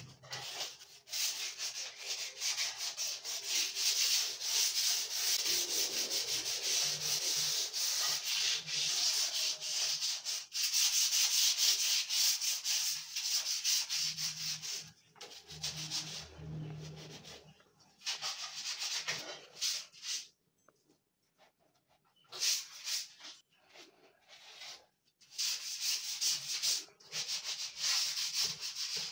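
Hand sanding of a painted marine-plywood wardrobe: sandpaper rubbing back and forth over the surface in quick strokes. The runs of sanding are broken by a few short pauses in the last third.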